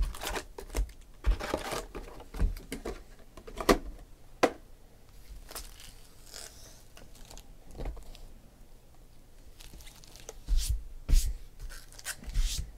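Foil-wrapped baseball card packs crinkling and rustling as they are handled and stacked, with scattered sharp taps as packs are set down. It quietens for a few seconds in the middle, then the crinkling picks up again near the end.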